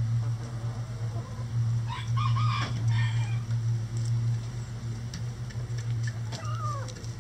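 A rooster crowing once, starting about two seconds in, over a steady low hum. A short chicken call follows near the end.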